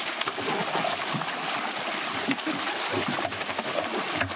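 Water and live pangasius fish pouring from a plastic drum into a large metal tray: a steady rush of pouring and splashing, with a few sharper knocks near the end.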